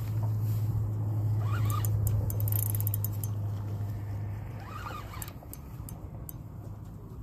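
A low, steady engine hum that fades away about halfway through, with a few faint light clicks.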